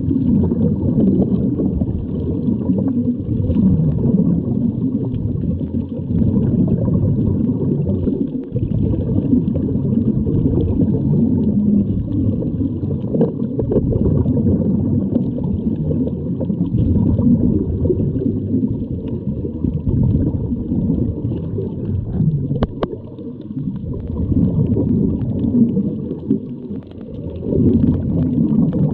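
Muffled underwater sound heard through a camera housing: continuous low rumbling and bubbling from scuba divers exhaling through their regulators, with a single sharp click about 23 seconds in.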